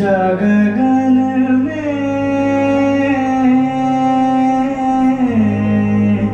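A male singer holds one long note of a Jain devotional song (stavan), stepping up in pitch about one and a half seconds in and falling away about five seconds in, over a steady harmonium drone.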